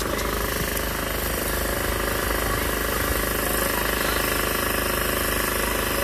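An engine running steadily, a constant even drone.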